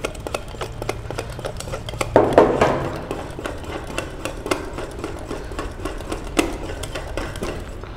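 Wire whisk beating a thick flour batter in a stainless steel bowl, with quick ticks and scrapes of the tines against the metal and a few louder clanks about two seconds in.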